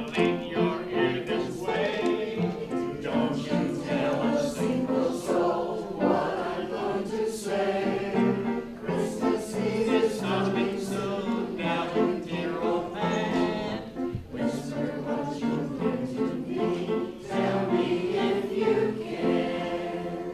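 A group of voices singing a Christmas carol together in chorus, sustained and unbroken.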